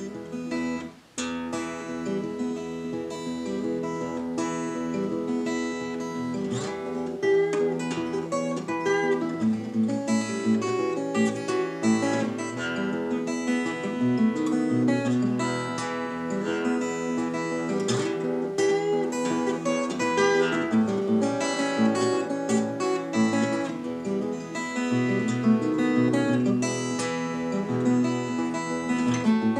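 Steel-string acoustic guitar played fingerstyle at a brisk pace, a steady bass line picked under melody notes. The playing breaks off briefly about a second in, then runs on.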